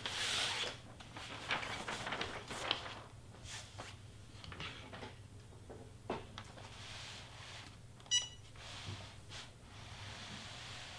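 Rustling and light knocks of a sheet and tools being handled, then a single short electronic beep about eight seconds in from the heat press used to set heat transfer vinyl under a Teflon sheet.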